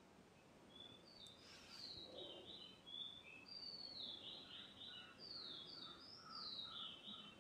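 Near silence with faint bird calls: a run of short chirps and falling whistles that starts about a second and a half in and goes on to the end.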